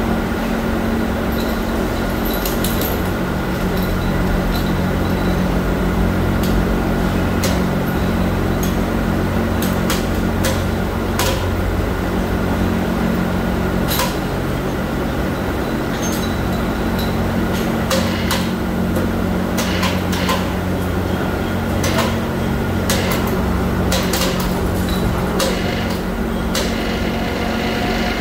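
Steady hum of factory machinery, overlaid by scattered sharp metallic clicks and clinks from the steel chain of an overhead chain hoist being handled, most frequent in the middle stretch.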